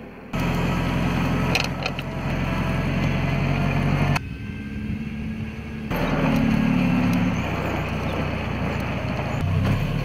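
Forklift engine running steadily as the truck drives, a low, even engine note that changes abruptly a few times.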